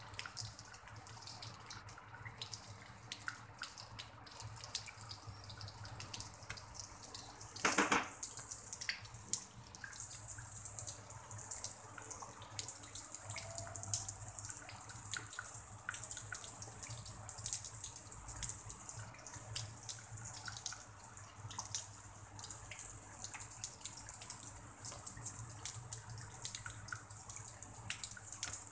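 Light drizzle falling on a pond and wet grass: a steady hiss with many small drop patters. One brief louder sound stands out about eight seconds in.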